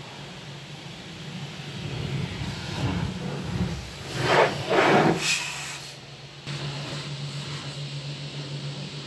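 High-pressure car-wash lance spraying water onto the car, heard from inside the cabin: a steady hiss over a low hum, with two loud bursts around the middle as the jet strikes close by.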